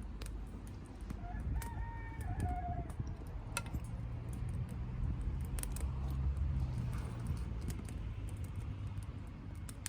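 Conifer wood burning in a Solo Stove–style wood stove: irregular crackles and sharp pops over a steady low rumble of the fire. A brief distant bird call sounds about a second and a half in.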